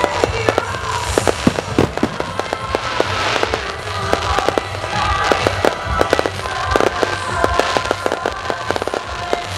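Fireworks display: a dense run of rapid pops, crackles and bangs from crackling star bursts and shells, with music playing underneath.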